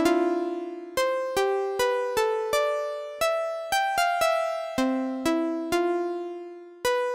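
Intro music: an electric-piano-like keyboard playing a slow melody of single struck notes, about two a second, each ringing out and fading before the next.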